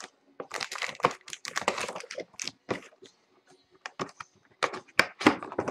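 A sealed box of trading cards being opened by hand: crinkling plastic wrap and cardboard clicking and cracking in an irregular run, densest in the first two seconds, with a few sharp cracks near the end.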